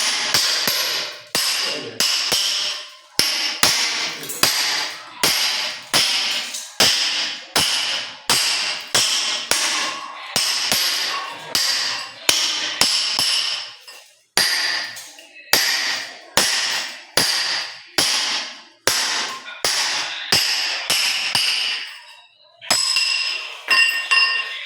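Hand hammer striking over and over at about two blows a second, each blow ringing briefly, as the floor around a new washroom floor drain is worked. The blows stop near the end, and a few lighter ringing metal taps follow.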